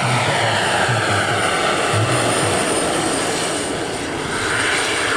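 Large turbine-powered scale model Mi-24 helicopter in flight: the steady whine and rush of its model gas turbine and rotor. Its pitch slides down early on and rises again near the end as the model moves past.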